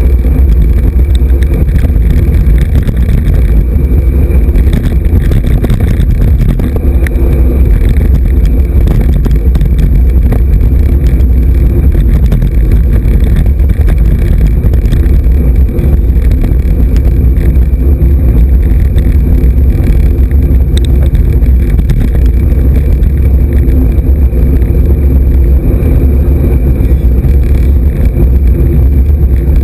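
Loud, steady low rumble of wind buffeting the microphone of a camera mounted on a moving road bike.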